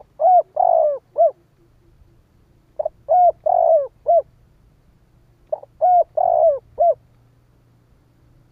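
Spotted dove cooing: three phrases of about four notes each, a short note, two longer ones and a short closing note, repeated roughly every two and a half to three seconds.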